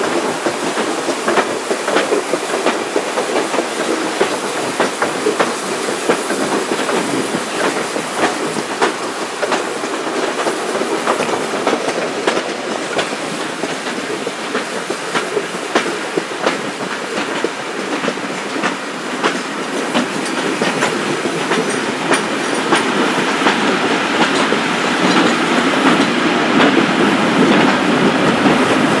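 Vintage railway coach running along the line, its wheels clicking over rail joints over a steady rumble of running gear. The sound grows louder near the end.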